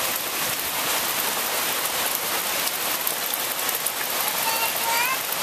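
Steady rain from a tropical storm falling and pattering on surfaces: an even hiss with many tiny drop ticks.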